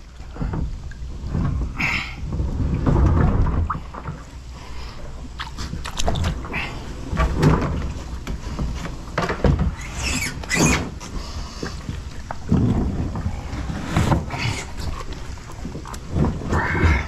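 Irregular knocks, scrapes and splashing as a plastic kayak bumps against rocks and a man climbs out of it onto them, with handling rumble on the microphone.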